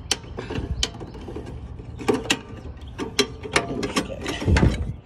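Irregular metallic clicks and clanks from hands working at the deck engagement linkage of a Troy-Bilt riding mower, with one heavier low thump about four and a half seconds in.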